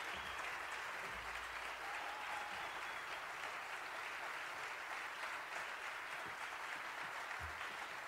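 Concert audience applauding steadily at the end of a piece.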